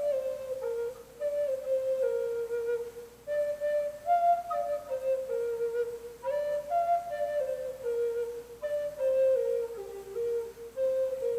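Native American flute playing a slow solo melody in repeated phrases that each step down in pitch, with short breaks for breath between phrases.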